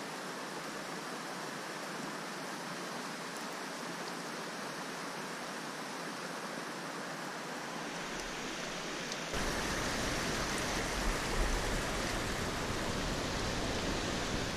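Mountain torrent rushing over rocks as a steady wash of water noise. About nine seconds in it becomes louder and deeper.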